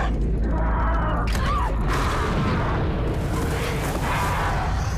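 Action-film sound mix of a dinosaur stampede during a volcanic eruption: a deep, steady rumble with music over it, and a short rising-and-falling cry about a second and a half in.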